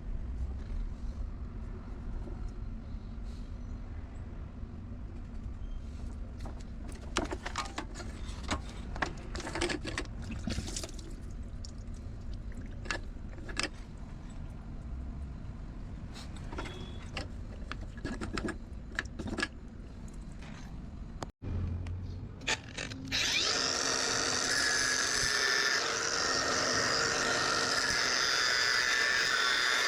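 Scattered knocks and clicks of hand work over a low rumble, then a power tool starts about 23 seconds in and runs steadily and loudly, with several high held pitches in its sound.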